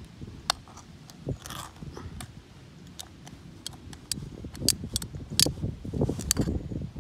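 A ring-pull anchovy tin being opened by hand: a sharp metallic click about half a second in as the ring pull lifts, a short tearing sound as the foil-thin lid peels back, then a run of clicks and knocks near the end as the lid is bent back and the tin is handled on a wooden board.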